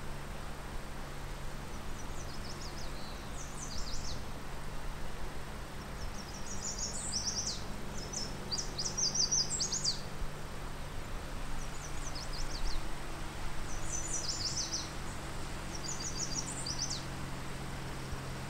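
A songbird singing short, high, rapid phrases of quick notes, repeated every few seconds.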